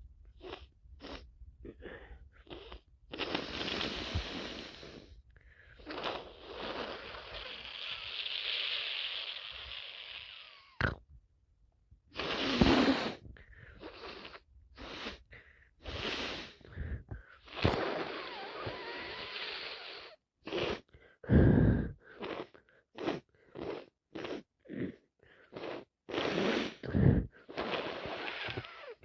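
A person with a heavy head cold making congested nose sounds: many short sniffs, long wet nose-blowing, and a few sharp sneezes.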